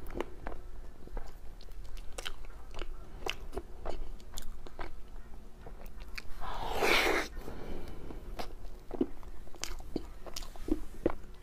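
Mouth sounds of eating a soft cream-filled mochi: many short, wet, sticky smacks and chewing clicks, with one longer noisy sound lasting about a second near the middle.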